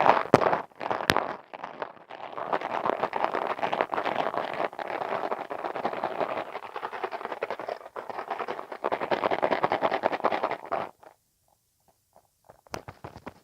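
Close-miked ASMR mouth sounds: a dense, continuous run of wet clicks and smacks. About eleven seconds in they stop, and only a few scattered clicks follow.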